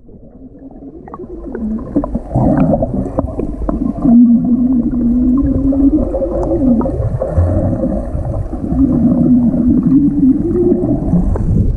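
Muffled underwater sound of a swimmer doing arm strokes and kicks while exhaling bubbles: gurgling and water churn, with a low wavering hum that rises and falls and comes and goes.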